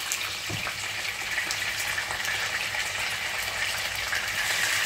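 Fish frying in oil in a frying pan: a steady sizzle with fine crackling.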